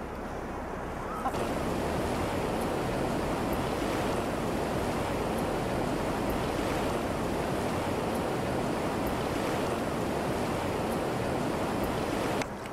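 Steady rushing of river rapids, getting louder about a second in.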